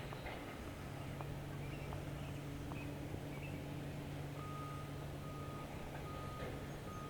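Heavy demolition machinery engine running steadily, and about four seconds in a backup alarm starts sounding a string of repeated beeps as a machine reverses.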